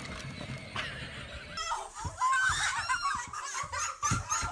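High-pitched laughter and screaming from people, starting sharply about a second and a half in and going on in short, broken peals. Before that there is only a faint background hum.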